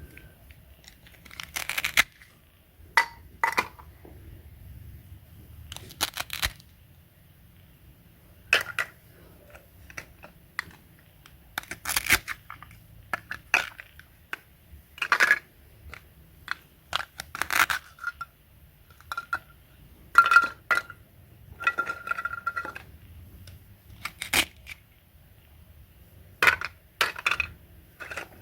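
Irregular short taps and clicks of small hard objects being handled, a few with a brief ringing clink.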